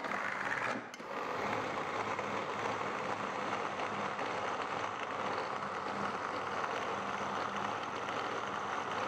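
Moulinex mini food chopper whirring as its blade grinds desiccated coconut and egg white into a paste. It stops briefly about a second in and then runs steadily.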